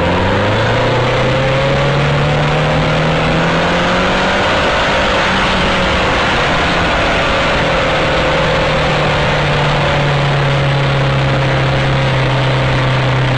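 Heavy motorcycle engine running steadily at high speed under loud wind rush, its note rising slightly about four seconds in and easing down a little later.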